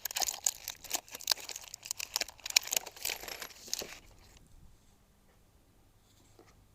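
Packaging being handled, crinkling and rustling with many small crackles, which stops about four seconds in.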